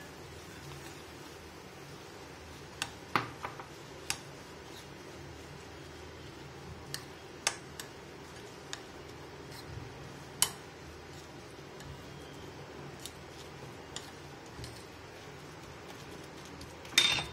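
A hand mixing spinach purée in a bowl: a faint steady background with scattered light clicks against the bowl, and a louder clatter near the end.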